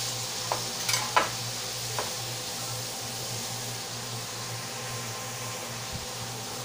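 Chicken wings frying in oil in an aluminium wok, a steady sizzle. In the first two seconds, metal tongs click a few times against the pieces and the wok as the wings are turned.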